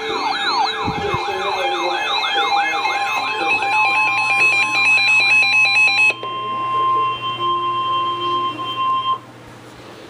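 Several weather alert radios, a Reecom R-1630 among them, alarming together for a Severe Thunderstorm Warning: a warbling siren-like alarm sweeping up and down a few times a second, rapid beeping, and the steady high Weather Radio warning tone. The warbling and beeping stop about six seconds in, and the steady tone cuts off suddenly about nine seconds in, leaving a low hum.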